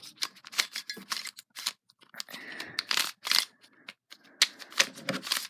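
Oversized plastic 3x3 puzzle cube being turned by hand: a quick, irregular run of clicks and clacks as its layers turn.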